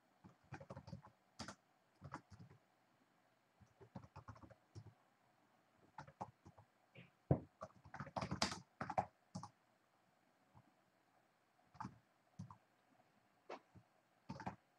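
Computer keyboard being typed on, faint, in scattered keystrokes with a quicker flurry about eight seconds in.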